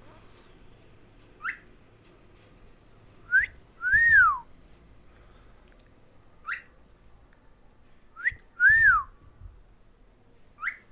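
Clear whistled notes with pauses between: five short upward chirps and two longer notes that rise and then fall away.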